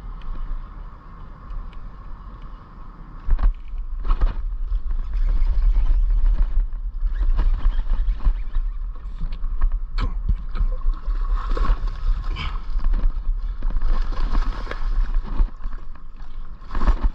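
Rough low rumble of wind and handling on the microphone aboard a fishing boat, with repeated knocks and clatter and a faint steady whine underneath; it grows much louder about three seconds in.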